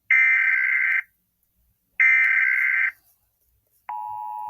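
Emergency Alert System SAME header: two one-second bursts of buzzing digital data tones, a second apart. Near the end the steady two-tone EAS attention signal begins, signalling that a new warning is about to be read.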